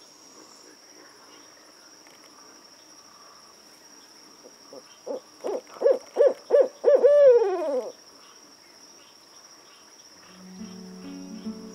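Adult barred owl calling: a run of about eight short hoots, then one long hoot that slides down in pitch. A steady high trill of crickets runs underneath.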